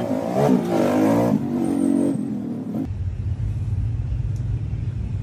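A car engine revving with a rising pitch, then about three seconds in dropping to a low, pulsing rumble.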